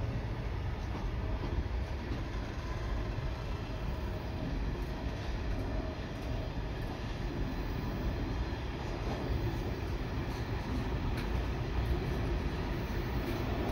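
Open box wagons of a freight train rolling past on the rails: a steady low rumble with a few faint clicks in the second half.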